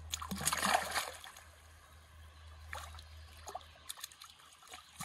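Shallow river water splashing and trickling as hands and a barbel are lifted through a submerged mesh keep net; loudest in the first second, then a few short, fainter splashes.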